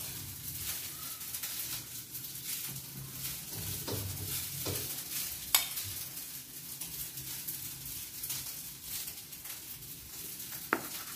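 Oil sizzling and crackling steadily in a frying pan. A metal spoon clicks sharply against a plate about midway and again near the end.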